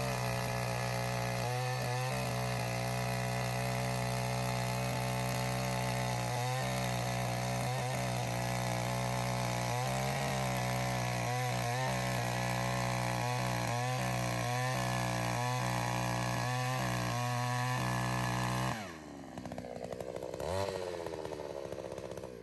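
Takyo TK3P earth auger's 82 cc single-cylinder, air-cooled two-stroke engine running steadily at high revs while the auger bores a planting hole in the soil. About three-quarters of the way through it suddenly drops to a lower, quieter running speed, with one brief rise and fall in revs.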